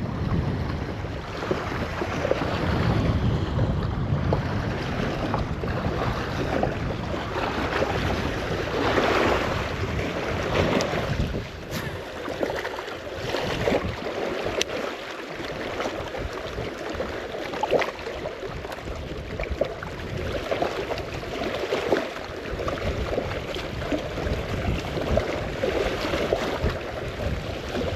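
Strong wind buffeting the microphone in uneven gusts, with a few faint ticks.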